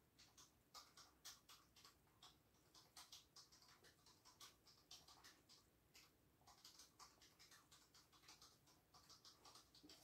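A beagle snuffling through a fleece snuffle mat for her food: faint, quick irregular sniffs, rustles and crunches, several a second.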